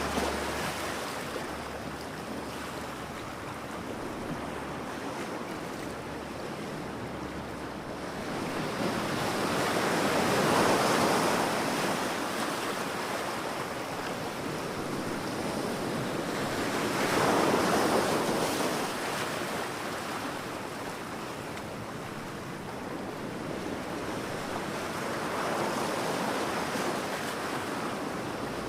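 Ocean waves breaking on a shore, a continuous wash of surf that swells as each wave breaks, about every seven or eight seconds, and ebbs between.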